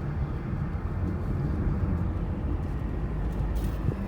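Steady road and engine rumble heard inside a moving car's cabin, with one short tick a little before the end.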